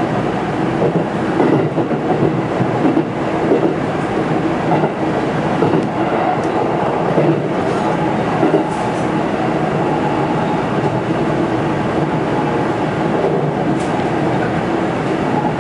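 313 series electric multiple unit running along the track, heard from the driver's cab: a steady running rumble with irregular knocks as the wheels pass rail joints.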